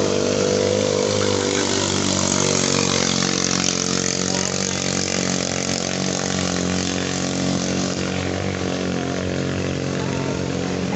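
Small single-cylinder 6.5–8.5 HP engines of racing ketinting longtail boats running flat out, their pitch dropping in the first couple of seconds as they go past, then a steady high drone.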